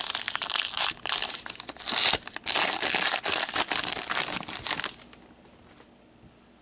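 Trading-card pack wrapper crinkling and tearing as a pack is torn open by hand, a dense run of crackles that stops about five seconds in.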